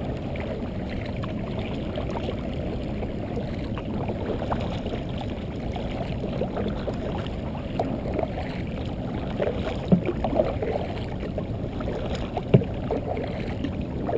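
Kayak paddling on calm water: paddle strokes and water sloshing and lapping against a Native Ultimate kayak's hull, with a steady low rush of water and wind. A few sharp knocks come in the second half.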